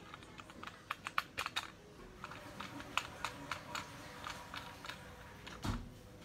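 Light, irregular clicks and taps of a brass model-railway bogie being swivelled and handled by finger on an upturned Kawai model car, with one heavier knock near the end.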